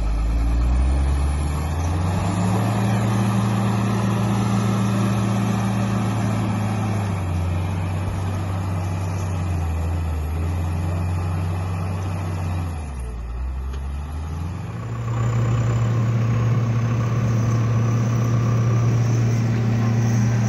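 Wheel loader's diesel engine working under load, revving up and down: its pitch climbs in the first couple of seconds, sags twice through the middle, then climbs again and holds for the last few seconds.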